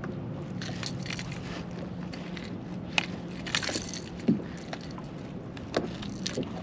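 Rustling and scraping as a small striped bass is held in a rag and a topwater popper is worked loose from its mouth, with a few sharp clicks and knocks: one about three seconds in, one just after four seconds, one near the end.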